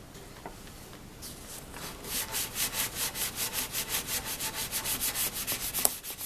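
Fine 3M sanding sponge rubbed quickly back and forth along a mandolin's wooden neck. It starts faint, then after about two seconds settles into fast, even strokes at about five a second, with one sharp click near the end.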